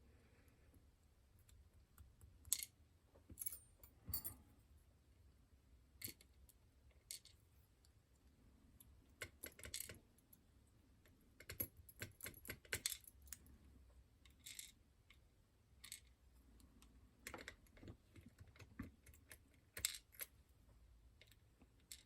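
Faint, irregular small metallic clicks and taps as the tiny key pins of a West 916 dimple lock are worked out of its core and set down.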